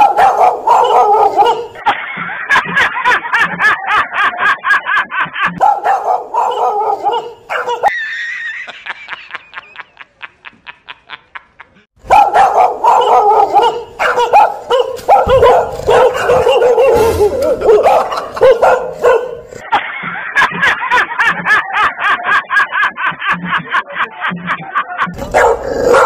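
Recorded dog barking played loudly through a portable speaker: a fast, frantic run of barks, several a second. About 8 s in it gives way to a run of quick ticks that fade away, and the barking starts again about 12 s in.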